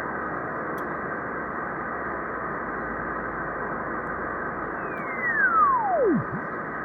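Single-sideband radio receiver hiss from the RS-44 satellite passband, narrow and cut off above speech frequencies. Near the end a single whistling carrier tone sweeps steadily down in pitch from high to very low and fades out. This is a carrier being tuned across the SSB receiver.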